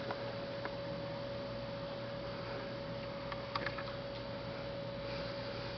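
Quiet background with a faint steady hum, one thin even tone that stops shortly before the end, and a few light clicks, a small cluster of them about three and a half seconds in.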